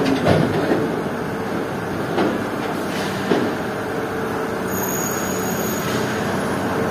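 Heavy diesel truck engine running steadily as the truck pulls out slowly. Three short clunks come in the first few seconds.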